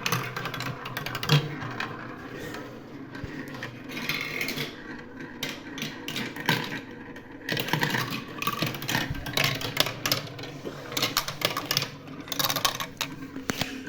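Marbles rolling and clattering along a marble run track, a continuous rattle of many small clicks and knocks.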